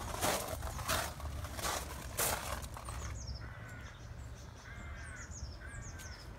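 Footsteps walking at a steady pace for the first few seconds. Then birds calling: a few short arching calls in a row, with thin high chirps falling in pitch over them.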